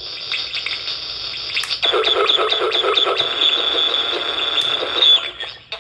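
Circuit-bent 1978 Texas Instruments Speak & Spell putting out a glitched electronic tone with a steady high whine. About two seconds in it grows louder and stutters rapidly, several repeats a second, then cuts off shortly before the end.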